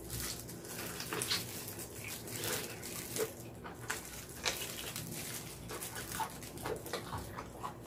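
Close-up chewing of sticky, sauce-glazed mini pork feet: irregular wet mouth clicks and smacks as the gelatinous meat is bitten and chewed.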